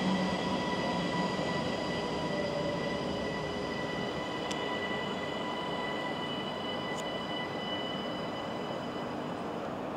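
Siemens Desiro ML electric multiple unit pulling away, its motor whine of several steady high tones slowly fading as it recedes. Two sharp clicks partway through.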